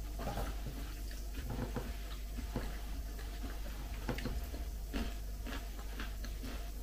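Eating sounds: a metal fork clicking and scraping on a ceramic plate, with chewing, heard as small scattered ticks over a steady low hum.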